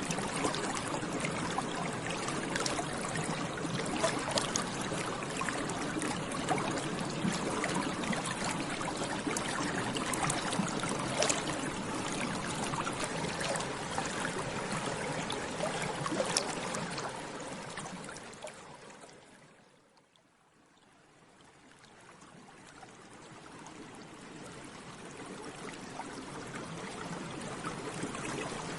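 Bubbles rising and bursting in water, a dense bubbling with many small pops. It fades out about two-thirds of the way through, nearly to silence, then fades back in.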